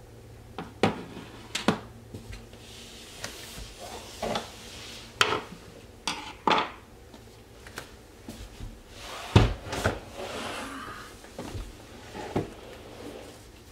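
Scattered clicks, clinks and knocks of hand tools and hardware being picked up and handled, with some rustling between them and one heavier thump a little past the middle.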